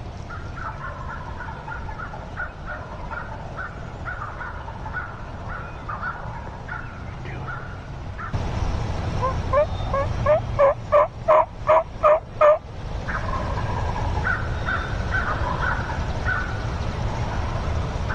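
Wild turkeys vocalizing: a long series of short, evenly repeated notes, then, about nine seconds in, a louder run of about seven rising notes lasting about three seconds, before the softer series resumes.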